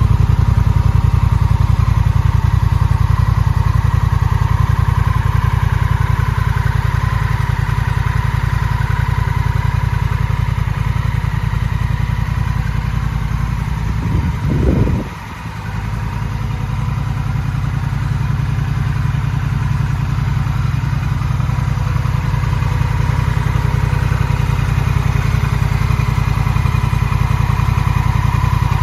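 2021 Honda Rebel 1100 DCT's 1,084 cc parallel-twin engine idling steadily. About halfway through there is a short low disturbance and a momentary dip in level, after which the idle carries on unchanged.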